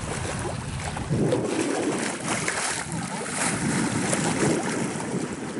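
Water rushing and splashing along a sailing yacht's hull as it moves under sail, with wind buffeting the microphone.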